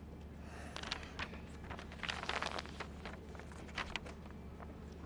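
Outdoor street ambience with a steady low hum, broken by scattered sharp clicks and rustles, including a quick flurry of clicks about two seconds in.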